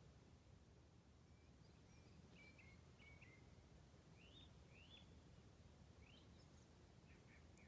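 Faint birdsong: a bird's short chirps and quick rising notes, repeated several times from about a second and a half in, over a steady low background rumble of outdoor ambience.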